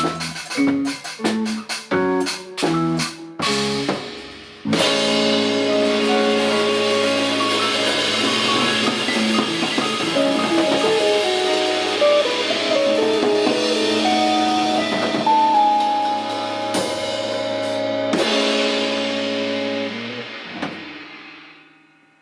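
Instrumental band with guitar, keyboard, bass and drums ending a piece: about four seconds of sharp stop-start chords hit together, then one long held chord under a cymbal wash, with a couple of crashes near the end, ringing out to silence.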